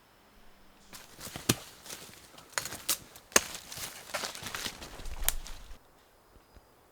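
Irregular rustling and handling noises lasting about five seconds, broken by several sharp cracks.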